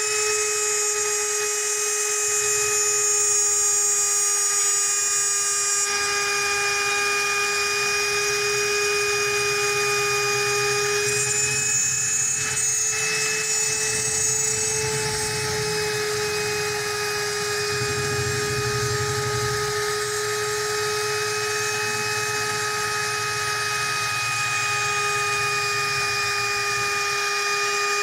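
Handheld electric trim router running under load with a steady high-pitched whine as it cuts a groove in a laminate-faced door panel.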